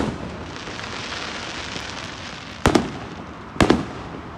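Aerial fireworks exploding: the tail of a sharp bang right at the start, a hissing crackle for the next second or two, then two more sharp bangs about a second apart near the end.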